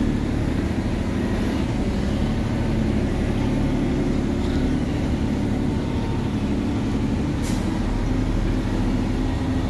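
Heavy truck's diesel engine running steadily while it drives over a dirt site, heard from inside the cab. A brief high hiss comes near the end.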